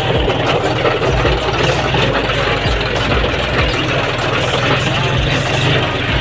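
John Deere 5105 D tractor's three-cylinder diesel engine running steadily, heard from the operator's seat, with a few short low thumps.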